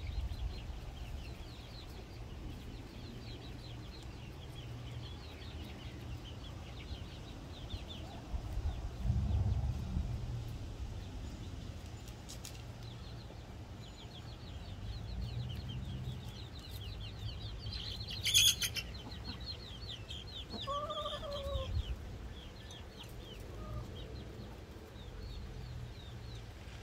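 Hens clucking softly as they forage, with one drawn-out rising-and-falling hen call about 21 seconds in. Rapid high-pitched chirping goes on throughout, and a brief sharp sound stands out about 18 seconds in.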